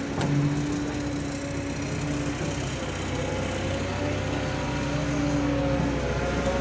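Excavator's diesel engine running steadily, with a low hum and a higher whine that wavers up and down in pitch.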